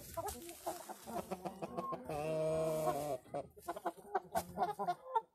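Light Brahma chickens clucking in quick short calls, with one drawn-out, steady-pitched call lasting about a second, starting about two seconds in.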